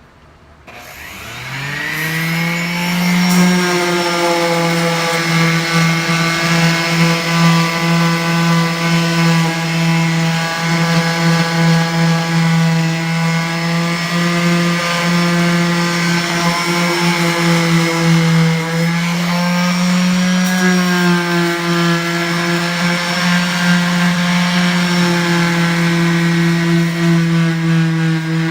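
An electric power tool spins up over the first couple of seconds and then runs steadily with a high, even whine. Its pitch sags briefly about two-thirds of the way through and then recovers.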